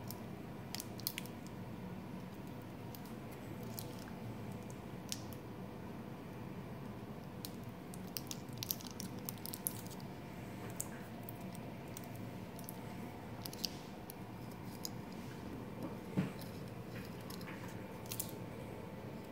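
Handling noise: scattered small clicks and crinkles as a hand-held 3D-printed plastic assembly wrapped in a plastic bag is turned about, with one sharper knock about sixteen seconds in. Under it runs a steady low hum with a faint steady whine.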